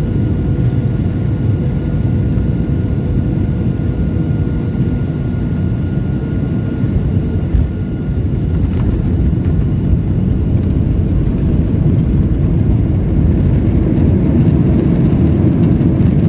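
Jet airliner cabin noise heard from a seat over the wing while the plane rolls along the ground: a steady low rumble of engines and wheels that grows a little louder in the second half.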